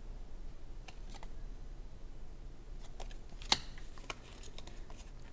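Uno cards being slid off a held deck and flipped over by hand: scattered light clicks and snaps, the sharpest one about three and a half seconds in.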